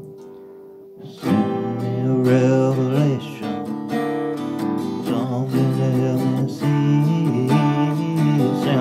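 Acoustic guitar strummed with a man singing over it. A chord rings out quietly for about the first second, then the strumming and the voice come back in.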